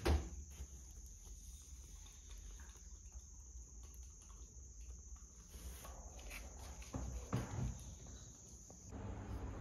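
Steady high-pitched insect chirring, with a sharp knock right at the start and a few soft thumps about seven seconds in.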